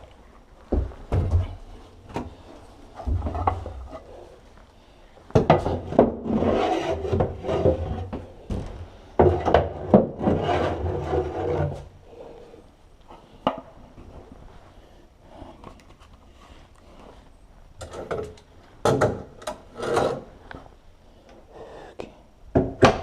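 Rubbing and scraping of objects being handled, in irregular bouts: two longer stretches in the middle, with short knocks and scrapes near the end.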